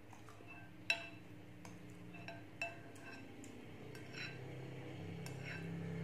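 Metal spoon clinking against a glass bowl several times while scooping cucumber pieces out of sugar water. Each clink rings briefly, and the sharpest comes about a second in.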